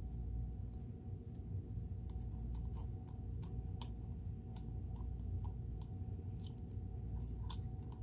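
Irregular light clicks and taps of small metal parts and screws being handled on a Kenmore sewing machine's gear housing, growing busier about two seconds in, over a steady low hum.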